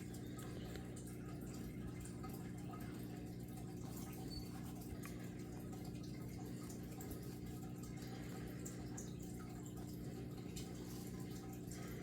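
Steady low hum with faint, scattered small ticks over it.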